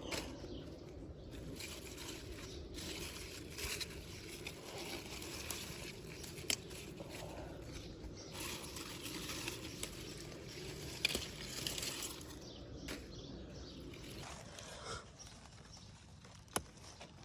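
Vegetables being picked by hand: leaves and plants rustling in irregular bursts, with a few sharp snaps of stems breaking, three of them standing out.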